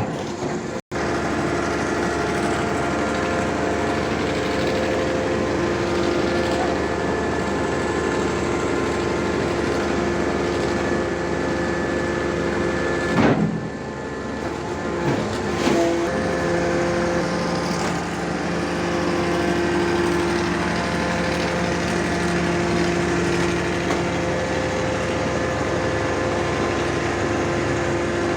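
A hydraulic static pile driver's engine and hydraulic pump running steadily with a constant whine. It breaks off briefly about a second in and again about halfway, and a deeper tone joins in after that.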